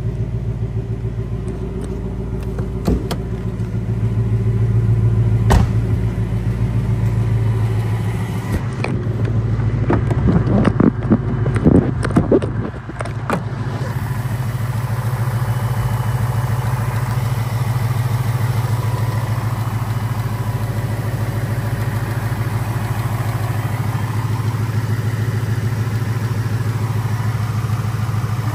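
2020 Ford Mustang GT's 5.0L V8 idling steadily. Over the idle come a couple of sharp knocks a few seconds in, then a run of knocks and clatter lasting several seconds at about ten seconds in.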